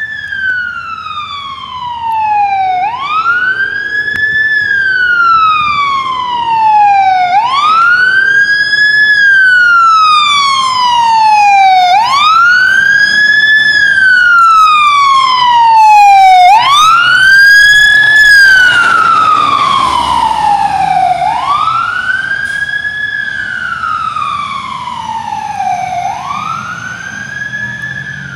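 Fire engine siren wailing, each cycle rising quickly and falling slowly, about every four and a half seconds. It grows louder as the engine approaches and fades as it drives away. A brief flurry of rapid higher tones comes about sixteen seconds in.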